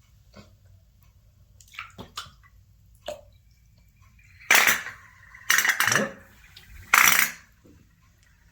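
Water and small metal pieces handled in a basin: a few light knocks, then three loud splashing clatters about a second apart.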